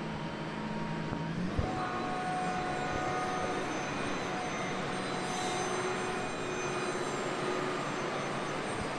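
JCB Fastrac tractor running steadily while its tipping trailer unloads a load of grass silage. Its steady machine note shifts higher about a second and a half in.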